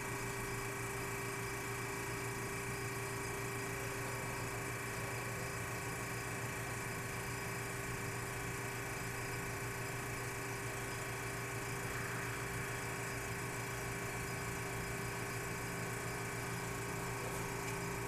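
GE Monitor Top DR-1 refrigerator's sealed compressor running in its top-mounted motor dome, a steady even hum. It is freshly charged with refrigerant and cooling the cabinet.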